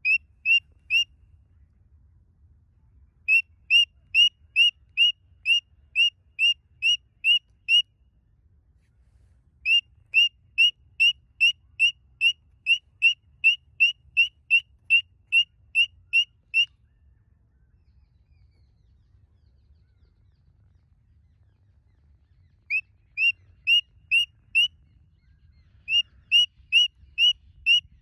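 Cockatiel calling a run of short, rising whistled chirps, about two a second, all alike, in bouts of several seconds with pauses between.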